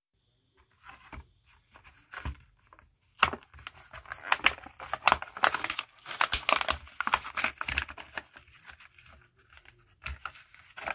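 A die-cast toy car's clear plastic blister pack being torn open by hand from its cardboard backing card: cardboard tearing and stiff plastic crackling and crinkling in a run of sharp snaps and rustles, densest in the middle, with a last short burst near the end.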